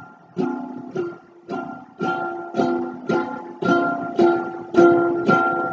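Ukulele strummed in a steady rhythm, about two chord strokes a second, each chord ringing on and the strumming gradually getting louder: the instrumental intro of a song before the singing comes in.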